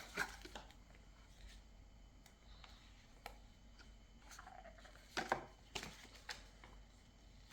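Quiet handling noises: a few light clicks and rustles as objects are picked up and set down, with a small cluster of clicks around the middle.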